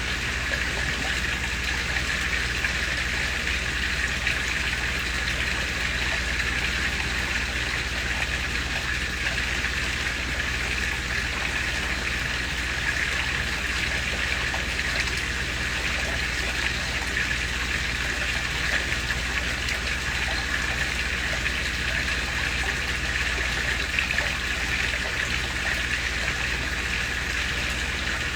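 Small koi-pond waterfall splashing steadily into the pond, with a low steady hum underneath.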